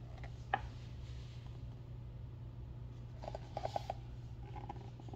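Faint handling of a picture book: a single click about half a second in and a short flurry of small clicks and rustling a little after three seconds, over a steady low hum.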